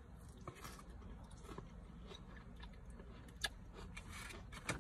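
Close-up chewing and biting into a crispy fried onion ring, with faint crackly crunches and two sharper crunches in the second half.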